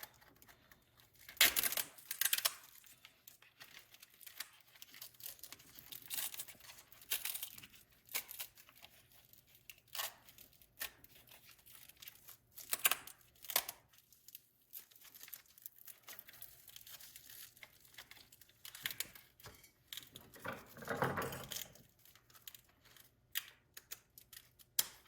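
Hook-and-loop (Velcro) battery strap being pulled apart and pressed back down, giving a series of short irregular rips with handling noise in between.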